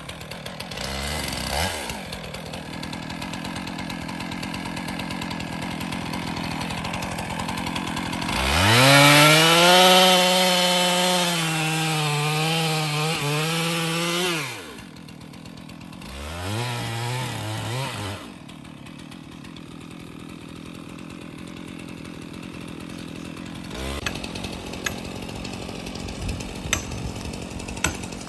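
Chainsaw idling, then revved up to full speed for about six seconds near the middle and again briefly for about two seconds, each time dropping back to idle. A few sharp knocks come near the end.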